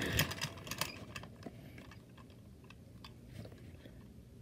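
Faint clicks and taps of plastic and die-cast toy trucks being handled on carpet, most of them in the first second and a half.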